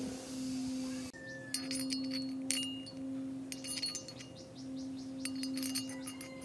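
Small steel parts clinking and ticking with a light ringing as rocker arms are fitted onto the valve stems of a small four-stroke generator engine's cylinder head, in several short clusters, over a steady low tone.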